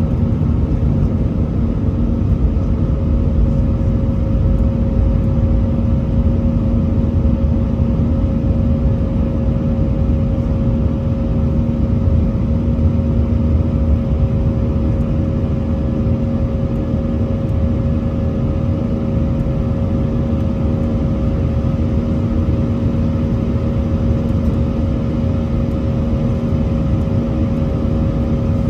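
Airliner's turbofan engines at climb power, heard from inside the cabin: a steady low rumble with two steady hums over it, a little quieter from about halfway.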